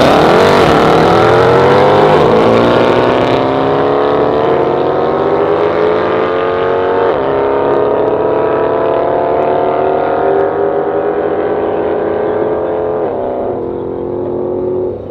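Mercedes C63 AMG 507's 6.2-litre V8 through its AlphaMale valved exhaust, accelerating flat out from a drag-race launch. The pitch climbs and drops back at several upshifts, growing fainter as the car pulls away down the strip.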